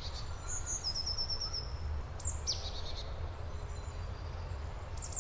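Small songbirds calling in a forest: a quick run of about seven high repeated notes about a second in, then short sliding high calls, over a low steady rumble.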